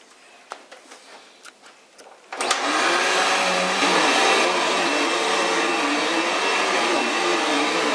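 Upright vacuum cleaner switched on a little over two seconds in, after a few light clicks, then running steadily, its motor hum wavering up and down as the hose nozzle works over the leather sofa cushions.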